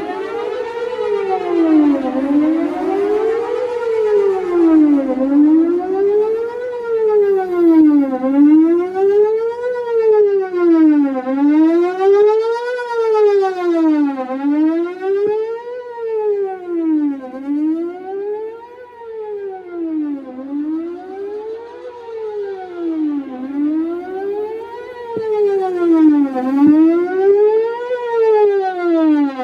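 Whelen WPS 4008 electronic outdoor warning siren on test, sounding a fast wail that sweeps up and down, each rise and fall taking just under two seconds, really loud with echoes. It grows somewhat fainter a little past the middle, then loud again near the end.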